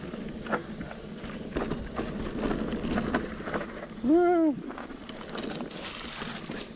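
Electric mountain bike riding along a trail: a steady rush of tyre and wind noise with scattered clicks and rattles from the bike. About four seconds in, a short voiced call rises and falls in pitch, the loudest sound.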